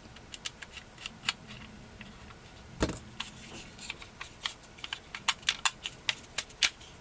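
Small clicks and taps of a Tokyo Marui Curve airsoft pistol being handled while its front cap is worked at. There is one louder knock about three seconds in and a quick run of clicks near the end.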